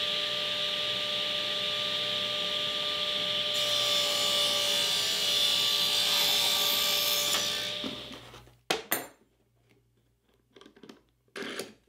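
Table saw running and ripping a taper along a wooden board pushed through on a taper jig. The cut gets brighter and noisier about a third of the way in, and the saw sound fades out about two-thirds of the way through. A few light knocks and clicks of wood and clamps being handled follow.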